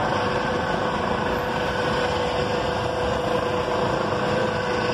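Light helicopter hovering overhead: steady rotor and engine noise with a steady tone running through it.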